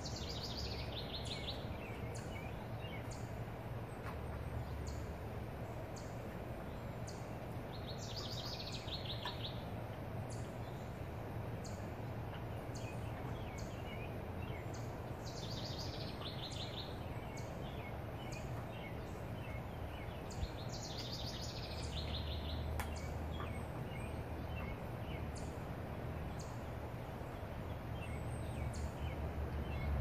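Songbirds singing in the trees. One bird repeats a short song four times, about every seven seconds: a high trill that drops to a lower trill. Short high ticks come about once a second throughout, over a steady low rumble.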